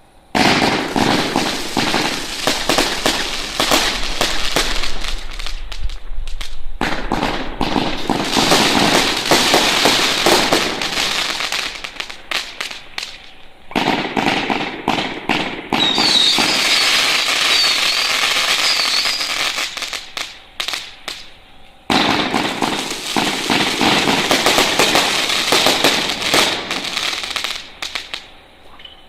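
100-shot volley-fire firework cake firing its shots in rapid succession, with dense crackling from crackling tails, mines and bouquets. The firing comes in several surges with short lulls between them, and brief wavering whistles come about halfway through.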